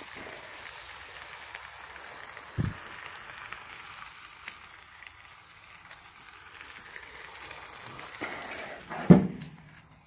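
Food sizzling steadily on a gas barbecue's flat steel griddle plate, with a single low thump about two and a half seconds in. Near the end comes a loud knock as the barbecue lid comes down, and the sizzle fades after it.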